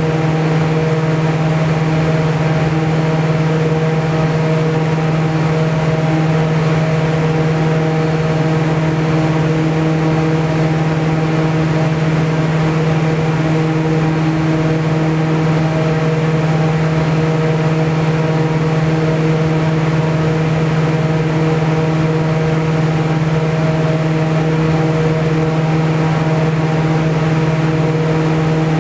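The large wind fan of a wind-wave tank running steadily at maximum wind speed: a loud, even hum with a strong low tone and overtones, over a steady rushing hiss of driven air and spray.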